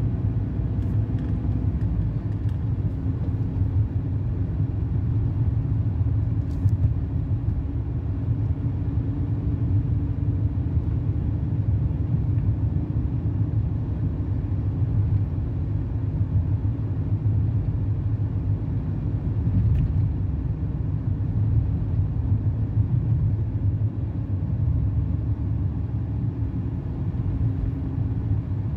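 Steady low rumble of a car heard from inside the cabin while driving: engine and road noise.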